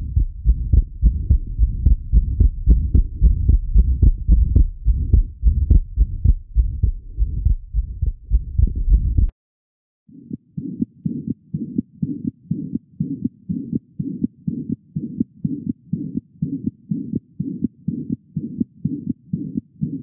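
Heart sounds recorded through a Thinklabs One digital stethoscope, in two recordings. The first is a 3-year-old's heart with a large atrial septal defect: a loud, low beat with the fixed split second sound of that defect. After a break of about a second, a faster, quieter heartbeat follows from a 2-month-old with atrial and ventricular septal defects, with a dominant murmur.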